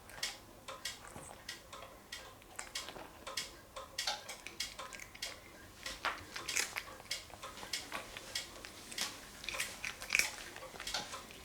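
A cat crunching dry cat treats, with irregular crisp crunches several times a second.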